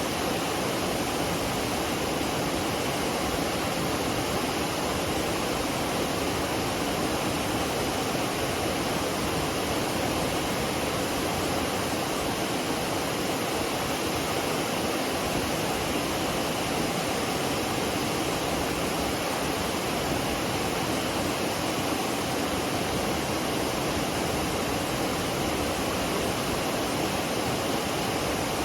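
McCloud Falls on the McCloud River: the waterfall's steady, unbroken rush of falling water.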